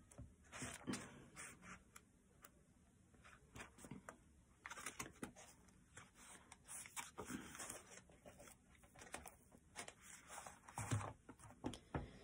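Faint paper rustles and flicks as the pages of a small paperback guidebook are leafed through, with two soft knocks near the end as the open book is pressed flat onto a wooden table.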